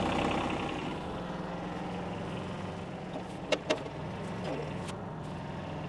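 New Holland tractor engine idling steadily, with two sharp clicks about three and a half seconds in.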